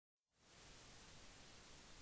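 Near silence: a faint, steady hiss that fades in out of dead silence in the first half second.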